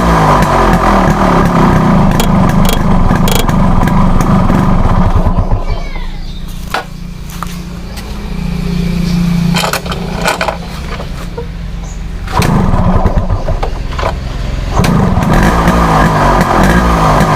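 Yamaha RX 135 single-cylinder two-stroke engine running with the throttle blipped, sinking to a weak, faltering idle about six seconds in, then revved up again. It will not hold a steady idle, which the owner blames on air leaking through a torn carburettor intake rubber.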